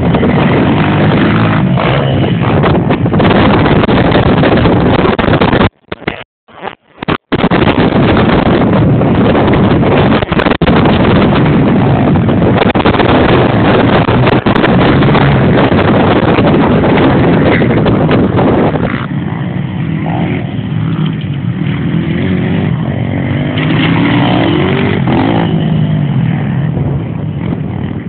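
Mini motocross bikes revving as they ride the track, largely buried under heavy wind buffeting on the microphone. The sound cuts out several times about six seconds in. In the last third the wind eases, and the engines are heard further off, their pitch rising and falling as they rev.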